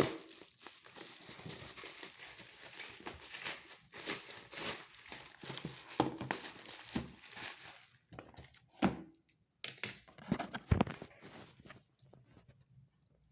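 Packaging being unwrapped: plastic and paper crinkling and tearing, with irregular sharp crackles. It thins out and nearly stops near the end.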